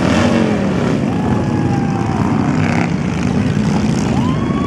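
A line of cruiser motorcycles riding past, their engines running loud and low one after another; the pitch falls as the first bikes go by.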